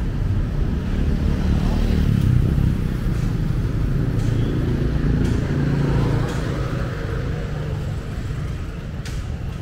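City street traffic: a motor vehicle's engine running as it passes, loudest about two to six seconds in and then fading, over a low traffic rumble.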